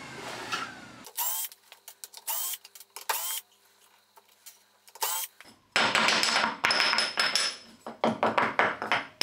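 Milwaukee M12 cordless drill driver running the screws out of cut aluminium pieces in about four short bursts, each whir falling in pitch as it stops, sped up four times. Then a few seconds of dense clattering as the freed screws and metal pieces are handled.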